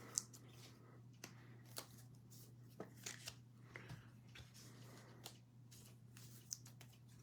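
Faint handling of trading cards: scattered soft clicks and slides as cards are sorted through, over a low steady hum.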